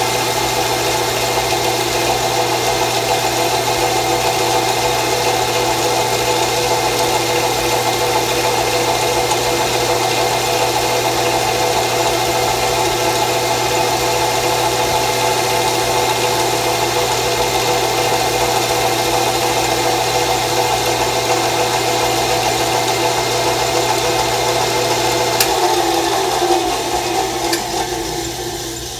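Drill press running steadily, spinning a homemade suede-covered wooden burnishing wheel while the edge of a leather belt is held against it to burnish in the wax. Near the end a click sounds, then the motor hum falls in pitch and fades as the press spins down.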